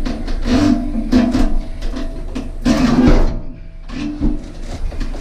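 Heavy cast iron bathtub being levered along wooden boards with a pry bar: wood creaking and scraping, with repeated knocks and short groaning squeals as it shifts.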